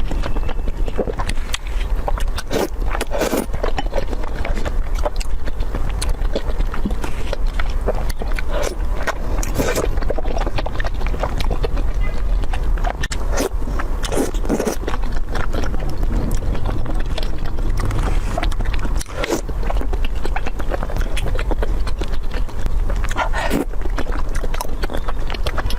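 Close-up chewing and eating sounds: irregular crunches, clicks and smacks, with a steady low hum underneath.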